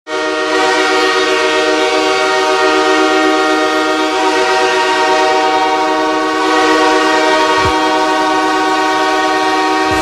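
NHL arena goal horn of the Los Angeles Kings sounding one long, steady blast, held unbroken for about ten seconds.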